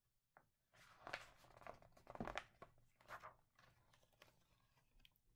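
Pages of a hardcover picture book being turned and handled: a string of short, soft paper rustles starting just under a second in and dying down after about three and a half seconds.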